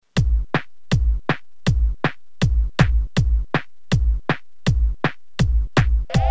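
Electronic drum-machine beat composed on a Teenage Engineering OP-1 synth: a steady, repeating pattern of deep kick drums and sharp snare-like hits, with a held synth chord coming in near the end.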